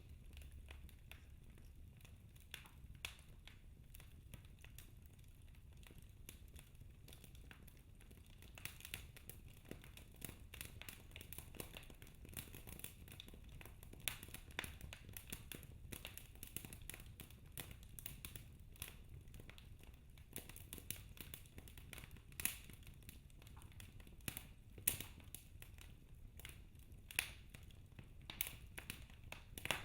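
Wood fire crackling in a fireplace: irregular small snaps and pops, busier after the first several seconds, over a faint low rumble.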